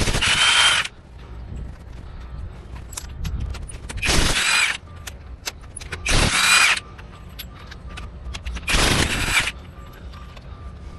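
Impact wrench spinning lug nuts off a truck wheel in four short bursts, about a second in length or less each, with small clicks of the socket and nuts between them.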